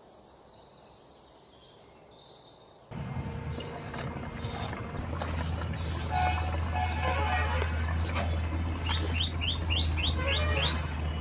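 Small birds chirping, with a quick run of six short rising chirps near the end, over background noise that gets suddenly louder about three seconds in and a steady low hum that joins a couple of seconds later.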